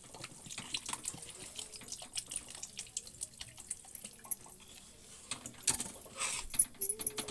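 Water poured from a plastic bottle into a steel kadhai of fried potato masala, with a ladle stirring and clinking against the pan. The pour splashes louder about six seconds in.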